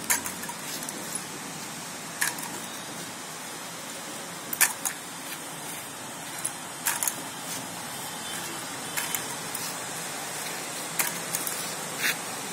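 Aluminium walking frame lifted and set down on a dirt path: a light click or clink every couple of seconds, sometimes two in quick succession, over a steady background hiss.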